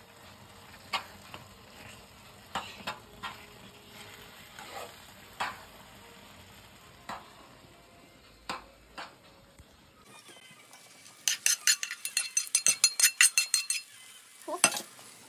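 A fork clicks and scrapes now and then against a non-stick pan of Maggi noodles as they are stirred, over a faint hiss. About eleven seconds in comes a quick, loud clatter of many small hard clicks as roasted peanuts are tipped from a steel bowl into the pan.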